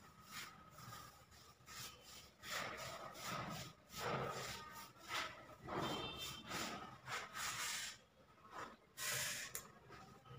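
A hand tool rubbing and scraping against a plastered ceiling in short, irregular strokes, with a faint steady high whine underneath.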